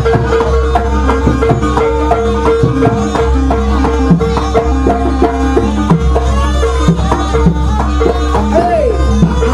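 Live jaranan accompaniment from a traditional East Javanese ensemble, played loud: a busy drum rhythm under a wavering high melody, over a held low tone.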